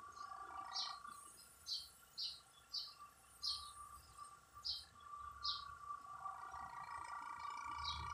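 A small bird chirping: single short, high chirps repeated about eight times, spaced roughly half a second to a second apart, over a steady faint hum.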